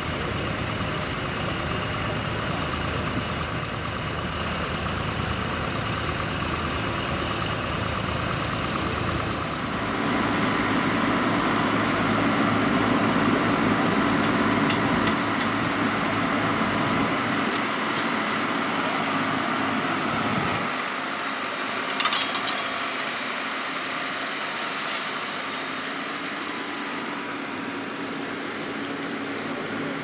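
Diesel farm tractor engines working under load as they pull reversible ploughs through stubble. The engine sound changes character about a third of the way in and again about two-thirds of the way in, with one brief sharp knock shortly after.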